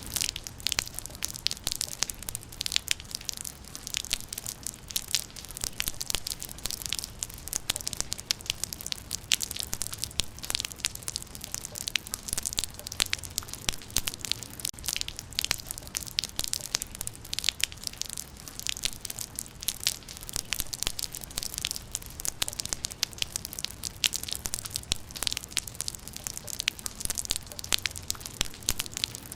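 Rain falling steadily, heard as a dense, irregular spatter of sharp drop impacts close by, with a faint low hum underneath.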